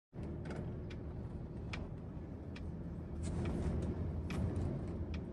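Car cabin noise while driving: a steady low road and engine rumble heard from inside the car, with a few faint scattered clicks.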